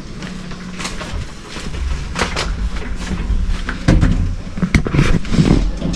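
Irregular clicks, knocks and handling noise from people stepping into a lift car and pressing a floor button. A low rumble builds through the second half.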